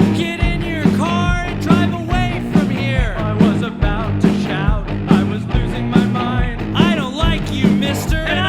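Demo recording of a rock song: a band playing with a steady beat, and a lead line that bends up and down in pitch over the bass and drums.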